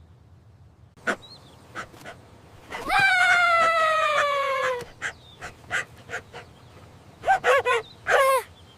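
Cartoon animal voice: one long call that falls in pitch for about two seconds, starting about three seconds in, then a few short yelps near the end, with scattered light clicks between.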